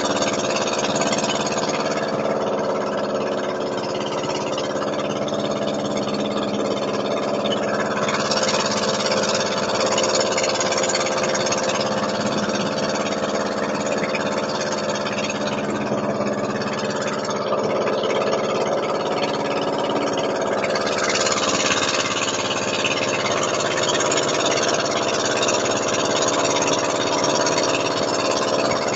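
Motorboat engine running steadily while the boat is under way, a continuous drone with rushing hiss on top.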